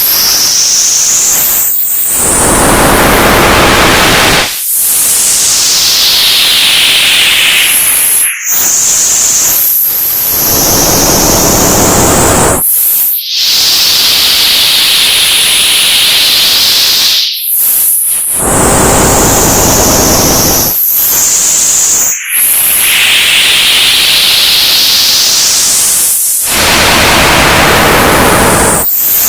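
Old analog TV static: a loud, steady hiss across all pitches. A whistling band sweeps down and back up through the upper range, and the hiss cuts out briefly about every four to five seconds.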